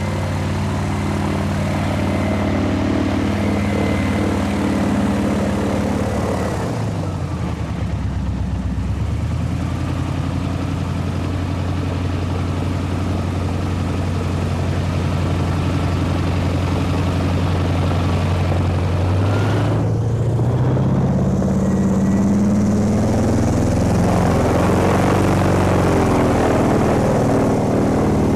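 Airboat engine and propeller running. The engine's pitch drops about seven seconds in and holds steady at lower revs, then rises again about twenty seconds in and holds at higher revs.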